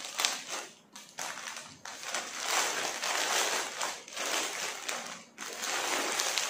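Plastic courier packaging crinkling and rustling in irregular bursts as it is handled and opened to get the saree out.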